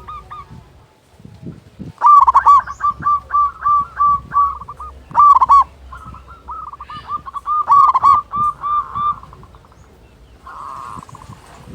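Zebra dove (perkutut) cooing: after a quiet first couple of seconds, several strings of quick, clipped coo notes, repeated in phrases with short pauses between them.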